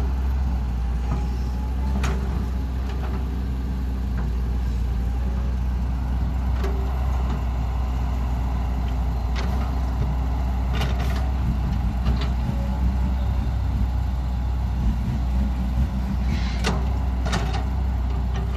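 Cat hydraulic excavator digging: its diesel engine runs with a steady low drone, broken by occasional short knocks and clanks from the bucket working the dirt.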